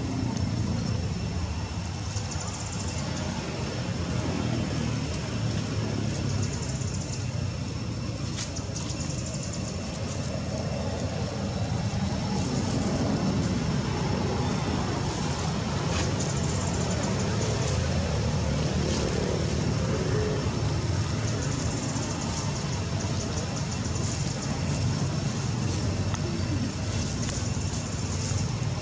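Steady low rumbling outdoor background noise, with faint short high chirps every few seconds.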